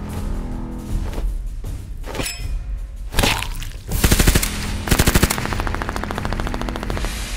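Automatic gunfire in rapid bursts, the loudest bursts about four and five seconds in, over a steady low music bed.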